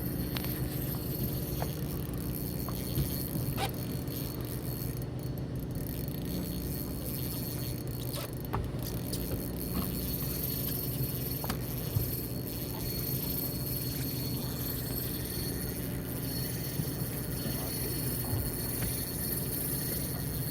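Steady low hum of a fishing boat's engine running at rest, with a few faint clicks and taps from tackle on deck.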